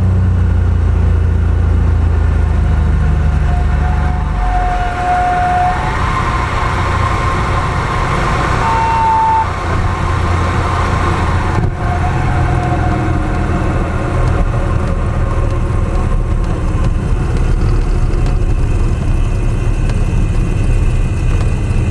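Steady drone of a Cessna R182 Skylane RG's six-cylinder piston engine and propeller heard inside the cabin, with a change in the engine note about four seconds in.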